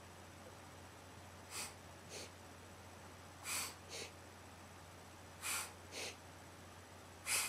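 A baby making short, noisy, breathy huffs in quick pairs, about every two seconds. The last pair, near the end, is the loudest.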